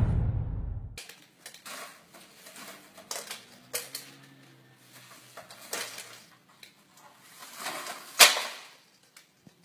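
Plastic drinking straws rustling and clicking as a cockatoo pulls them from a crinkly plastic bag and drops them on a wooden counter. The sound is scattered light clicks and crinkles, with one sharp clatter near the end. Intro music fades out in the first second.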